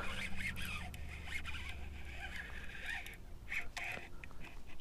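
Baitcasting reel being cranked steadily as the angler reels in a hooked largemouth bass, a whirring with short pauses in the last second or so.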